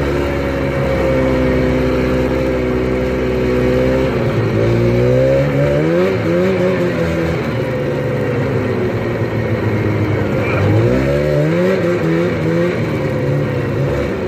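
Snowmobile engine running under way. It holds a steady pitch at first, then revs up and drops back as the throttle is worked, about four seconds in and again about ten seconds in.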